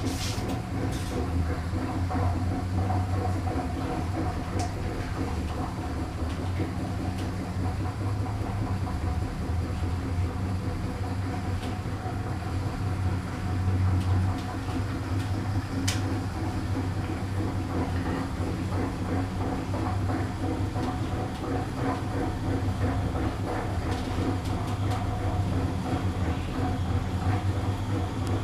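Otis Gen2 lift car travelling in its shaft: a steady low rumble and hum with a few constant tones and occasional faint clicks.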